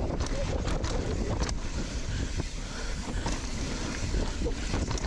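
Wind buffeting the microphone of a mountain biker's camera while riding down a trail, a steady heavy rumble, with a few sharp knocks and rattles in the first second or so.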